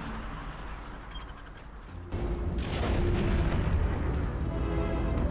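Cartoon explosion sound effect. A low rumble swells into a sudden heavy, rolling boom about two seconds in, with a whoosh, under dramatic background music.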